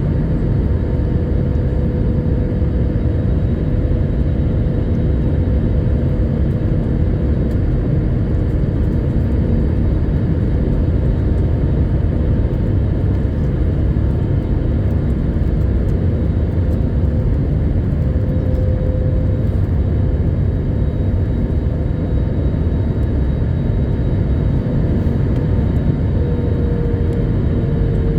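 Airbus A321neo cabin noise in flight: a steady deep rumble of engines and airflow from its Pratt & Whitney geared turbofans, with a steady engine tone that steps up slightly in pitch near the end.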